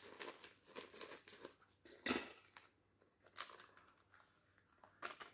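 Clear plastic bag of powdered creamer (bột béo) crinkling and rustling in the hands as it is handled and opened, in scattered short crinkles with the loudest about two seconds in.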